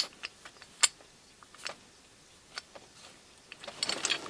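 Light clicks and knocks of a ball joint puller being handled and turned over in the hands: a sharper click at the start, a few single clicks about a second apart, and a denser rustling clatter near the end.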